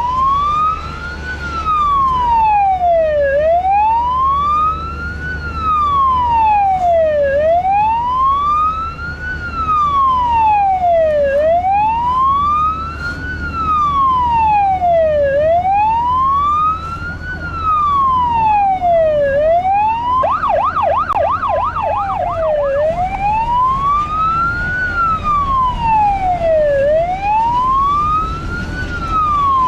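Fire brigade's electronic siren sounding a wail, its pitch rising and falling about once every four seconds, switching for a couple of seconds about two-thirds of the way through to a fast yelp of several quick up-and-down sweeps a second, then back to the wail. Beneath it runs the low engine and road rumble heard inside a car on an emergency run.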